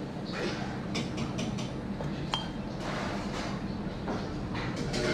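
Kitchen utensils and dishes clinking: a run of light taps about a second in and one short ringing clink a little after two seconds, between soft scraping sounds, over a faint low hum.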